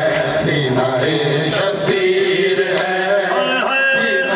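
Male voices chanting a noha, a Shia Muharram lament, through a microphone and PA, in long drawn-out melodic notes.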